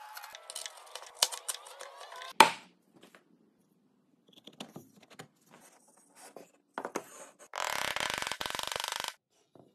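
Hand chisel cutting into a wooden mortise: scraping and small clicks of the blade and chips, ending in one sharp knock about two and a half seconds in. Later come a few light wooden knocks, then a second and a half of dense rasping noise of wood on wood as a sliding wooden joint is worked with a wooden mallet.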